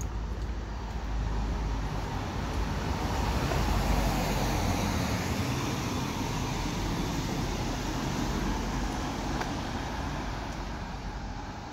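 A van driving past on the road. Its tyre and engine noise swells to a peak about four seconds in, then slowly fades as it drives away.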